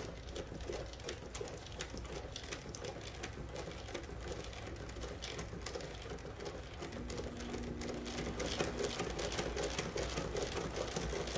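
Cornely L chainstitch embroidery machine running and stitching thick fuzzy yarn: a rapid, even clatter of the needle mechanism, growing a little louder near the end.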